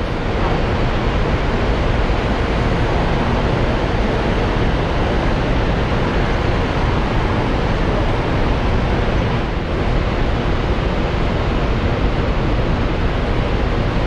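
Steady low rumble and rush of a large ro-ro ferry manoeuvring at the quay, its engines running and its propeller wash churning the harbour water.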